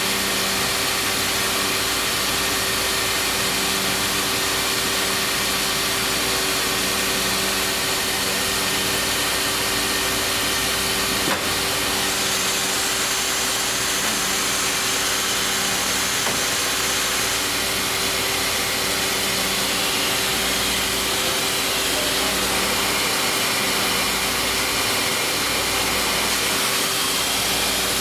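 Guild International MEL laser coil-joining welder running, a steady industrial hiss and hum throughout. There is a single sharp click about eleven seconds in and a higher hiss for a few seconds just after it.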